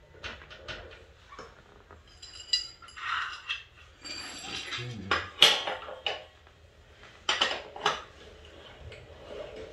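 Metal tools and brake hardware clinking and clanking on a mini bike's rear brake linkage as a combination wrench is handled: scattered sharp knocks, some with a brief metallic ring, the loudest about five and a half seconds in and a quick cluster near the end.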